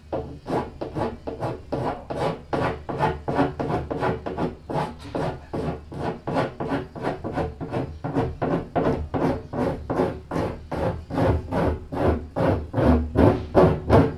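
A rasp file being drawn back and forth along the cut edge of a plastic barrel to round it over, in steady scraping strokes about three a second. The strokes grow louder near the end.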